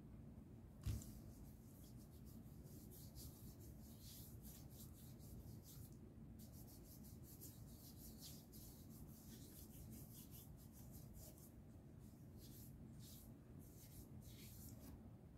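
Faint, irregular rubbing of fingertips over skin as a facial serum is spread across the face. There is a single thump about a second in.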